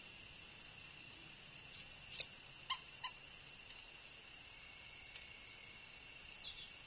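Faint outdoor ambience at a bird feeder: a steady thin high-pitched tone, with three short sharp notes or taps about two to three seconds in.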